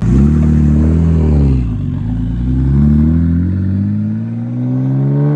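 Land Rover Discovery's swapped-in Mercedes OM606 3.0 straight-six diesel accelerating hard away under load. The engine pitch climbs, drops with a gear change about two seconds in, then climbs steadily again.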